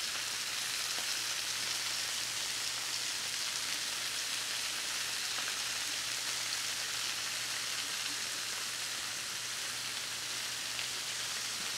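Paper-thin shaved ribeye frying in olive oil on a Blackstone flat-top steel griddle: a steady, even sizzle.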